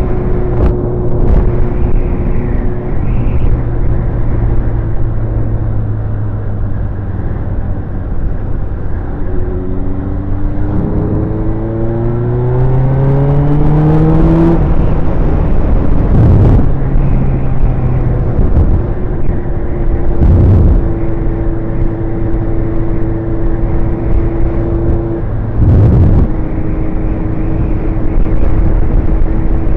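Sport motorcycle's engine through its new exhaust, under a rush of riding noise. It runs steadily, then the revs climb for about five seconds from roughly a third of the way in and drop suddenly at a gear change, settling back to a steady cruise. A few brief thuds come in the second half.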